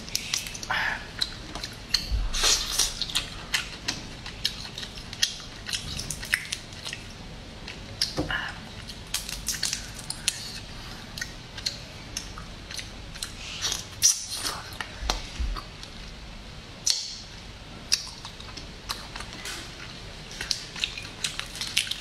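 Shells of cooked spicy crayfish cracking as they are twisted apart and peeled by hand: an irregular run of sharp little clicks and crackles, with one louder crack about fourteen seconds in.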